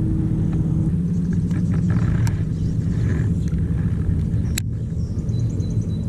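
Steady low rumble with a faint low hum underneath, and a sharp click about four and a half seconds in.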